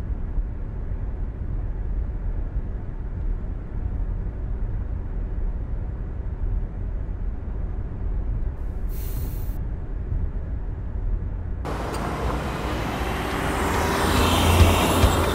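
Steady low road rumble inside a moving car, with a brief hiss about nine seconds in. About twelve seconds in it switches to a Volvo sedan driving past, growing louder toward the end.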